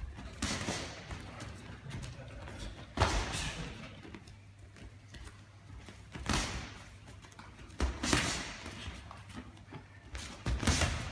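Boxing gloves landing punches during sparring: about five dull thuds, spaced a second or more apart, with shuffling footwork on the ring canvas between them.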